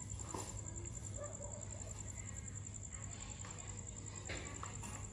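Night ambience dominated by a steady high, rapidly pulsing insect trill, typical of crickets, over a low steady hum. There are faint distant sounds and a couple of soft clicks.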